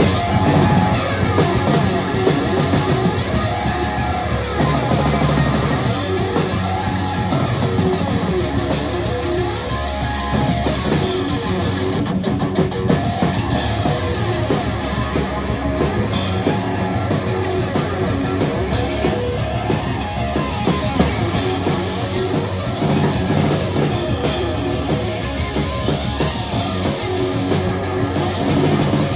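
Rock music with electric guitar and a drum kit, playing steadily throughout.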